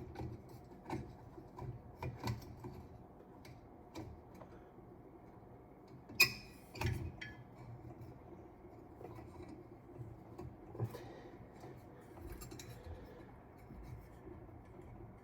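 Light clicks, knocks and rubbing of a ceiling-fan light-kit shade being handled and seated on its fitter, with two sharper clinks about six and seven seconds in.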